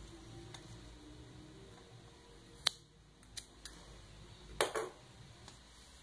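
Scissors snipping crochet yarn to cut it for fastening off: one sharp snip a little under three seconds in, two fainter clicks soon after, and a short cluster of clicks near five seconds.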